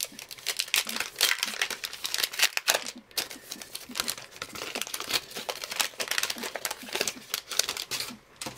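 Foil wrapper of a trading card pack being torn open and crinkled in the hands, a dense crackling that stops shortly before the end.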